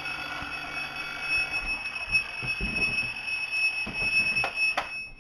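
Alarm clock ringing with a steady high tone, going on unheeded by a sleeper; it stops near the end, with a couple of knocks just before.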